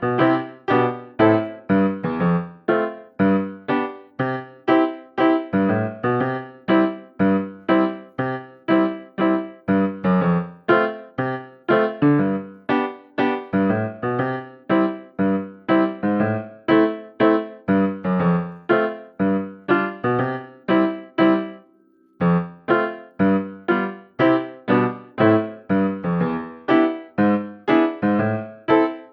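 Background music: a light piano tune of evenly paced notes, with a brief pause about three quarters of the way through.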